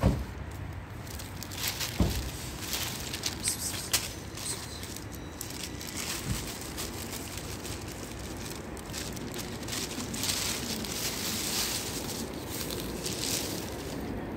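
Dry cat kibble being shaken out and scattering onto paving stones, with rustling of the food bag, after a few handling knocks in the first few seconds.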